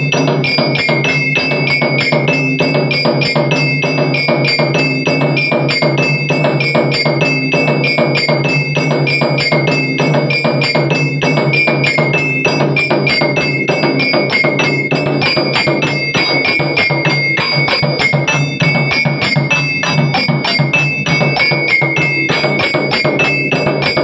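Automatic aarti machine running: mechanical sticks beat a 16-inch nagada drum in a fast, steady rhythm while two brass bells ring at two pitches in turn.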